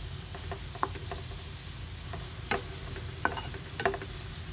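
Bitter melon and meat sizzling in a frying pan over low heat, with a handful of sharp pops scattered through.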